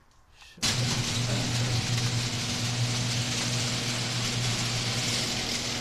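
A steady machine-like running noise with a low, even hum starts abruptly about half a second in and carries on without a break.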